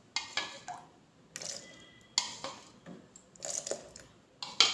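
Chilled milk poured into a mixer-grinder jar of whipping cream powder in several short ladlefuls, each pour a brief splash, with a few sharp knocks.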